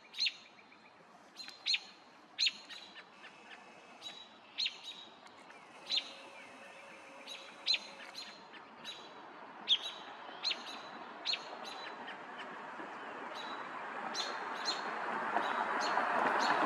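A bird giving sharp, short chip calls, each a quick downward sweep, repeated about once a second. A rushing noise swells steadily louder over the last few seconds.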